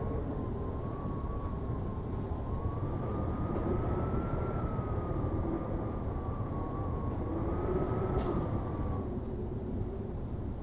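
Blizzard wind rumbling steadily, with a thin whistle that rises and falls slowly in pitch and fades out near the end.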